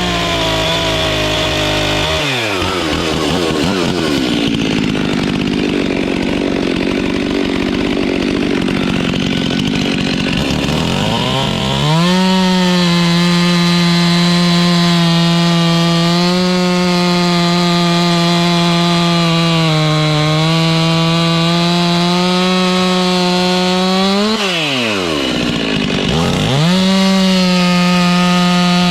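Stihl chainsaw cutting through small logs. The engine note sags and turns rough a couple of seconds in, runs high and steady through the middle, then drops sharply near the end and revs back up.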